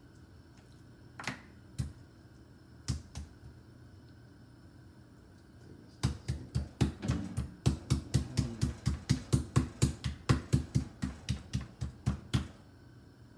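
Meat mallet pounding a raw pork chop to tenderize it: a few separate knocks in the first three seconds, then a fast, steady run of blows, about four a second, from about six seconds in until shortly before the end.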